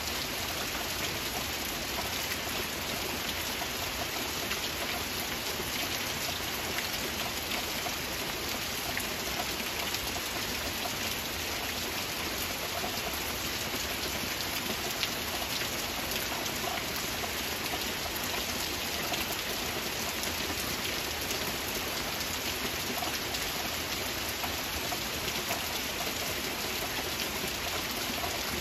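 Steady, gentle rain falling: an even hiss with many small, scattered drop ticks.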